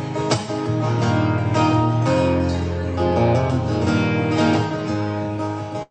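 Two acoustic guitars strummed together, playing a song. The sound cuts off abruptly at the very end.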